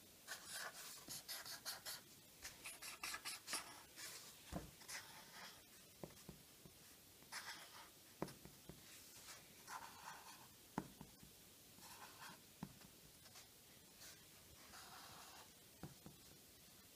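Felt-tip Sharpie marker drawing on paper: faint scratchy strokes, quick and close together for the first few seconds, then sparser, with a few sharp taps.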